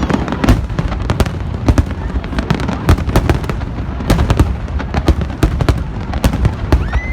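Aerial fireworks in a finale barrage: sharp bangs, several a second and irregular, over a continuous low rumble of overlapping bursts.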